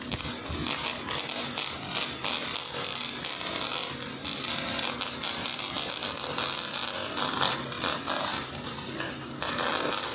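MIG welding arc crackling and sizzling steadily as a bead is run, at a turned-down heat setting. It starts abruptly and dips briefly near the end.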